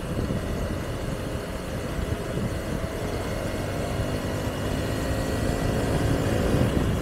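Honda Bros 160's single-cylinder engine running at road speed, with wind buffeting the microphone; the sound grows gradually louder.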